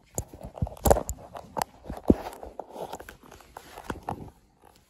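Handling noise from a phone rubbing and bumping against a newborn kid goat's coat while the kid is held and turned: irregular rustling with a few sharp knocks, the loudest about a second in and again about two seconds in.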